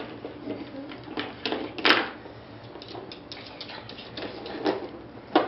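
Toys being handled and set down: scattered small clicks and clatter, with a sharp knock about two seconds in and another near the end.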